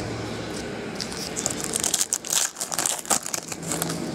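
Foil trading-card pack wrapper crinkling and cards rustling as they are handled, in a run of quick crackles that is densest about two to three seconds in.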